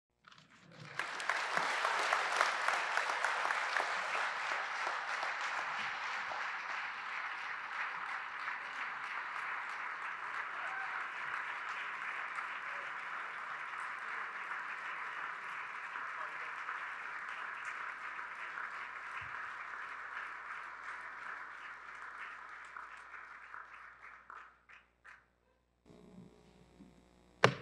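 A large audience clapping, starting about a second in, loudest at first and slowly dying away over some twenty seconds. A single sharp click near the very end.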